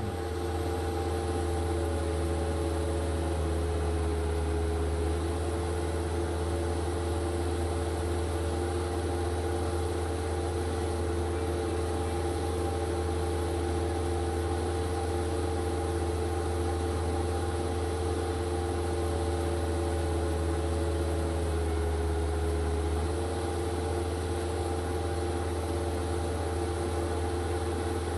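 Bobcat 863 skid steer's diesel engine running steadily at idle, its note shifting slightly twice.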